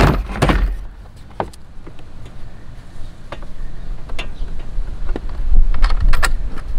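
A plastic camper battery box knocks and scrapes as it is shoved into place, then a run of sharp clicks near the end as a cable is fitted to the 12-volt battery's terminal. A low wind rumble runs underneath.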